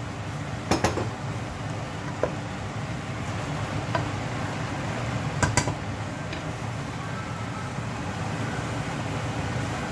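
Chicken, carrots and peppers sizzling in a steaming pot, a steady hiss, with a few sharp knocks of a wooden spoon against the pot.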